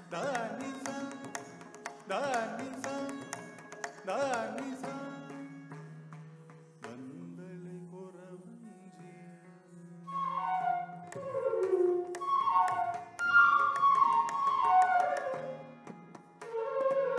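Live Carnatic music: a singer's voice with drum strokes over a steady drone in the first few seconds, then a bamboo flute playing quick runs of falling notes from about ten seconds in.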